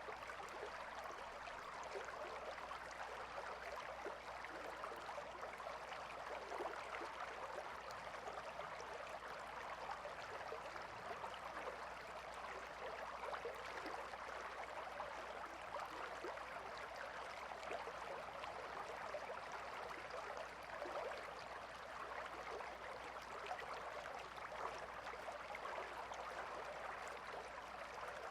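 A calm river flowing steadily, its water burbling and trickling in an even rushing wash with no pauses or changes.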